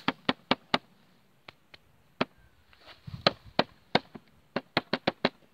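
Knuckles knocking on a rendered wall: sharp knocks in quick runs, several a second, with a short lull after the first three-quarters of a second. The knocks sound like wood, which makes the knocker suspect the wall is fake.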